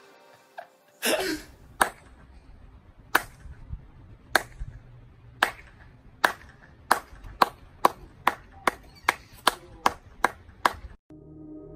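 A series of sharp single percussive hits, starting about a second apart and speeding up to several a second before stopping near the end.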